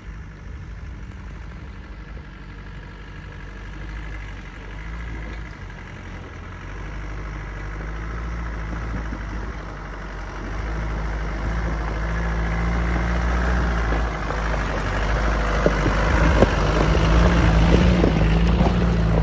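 Off-road 4x4's engine running as the truck climbs a steep, rocky green lane, growing steadily louder as it comes closer, with sharp cracks of stones under the tyres near the end.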